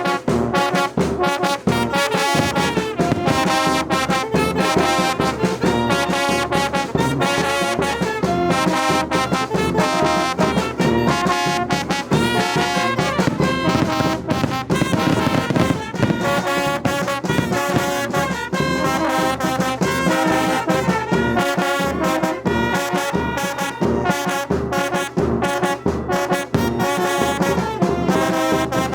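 Mexican village brass band (banda) playing a tune with trumpets and trombones over a steady beat.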